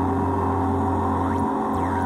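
Synthrotek 4093 Chaos NAND noise pedal droning through a Chase Bliss Habit delay: a steady buzzy electronic tone with a strong low hum and many held higher tones. Near the end a falling pitch sweep sounds and the low hum cuts out for a moment as the pedal's knobs are turned.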